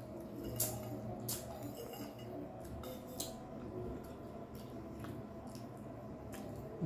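Quiet eating sounds at a meal: a few faint, scattered clicks and small handling noises of food and utensils over a low background.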